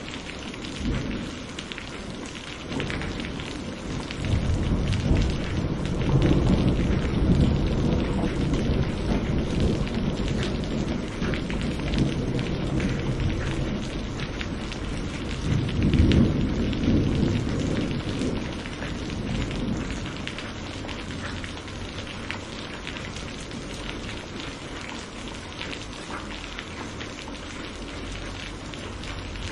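Steady rain with rolling thunder. A long low rumble builds a few seconds in, swells again about halfway through, then fades, leaving the rain alone for the last third.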